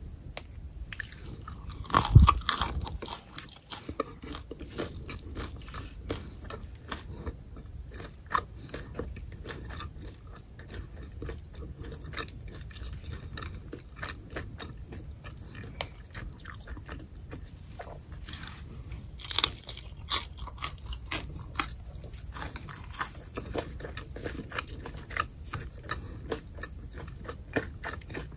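Crispy pan-fried scallion pancake being torn apart by hand close to the microphone: a steady stream of small crackles and crunches, with a louder crunch about two seconds in.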